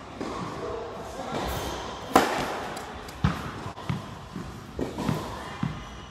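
A tennis ball bounced on a hard indoor court before a serve: a run of five short low thuds in the second half. Earlier comes a single sharp smack, the loudest sound, about two seconds in.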